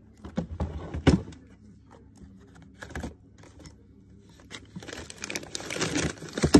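Hands rummaging in a freezer drawer packed with paper ice cream tubs and plastic-wrapped ice bars: wrappers crinkling and cartons knocking together, with a sharp knock about a second in and a louder stretch of rustling near the end, over a low steady hum.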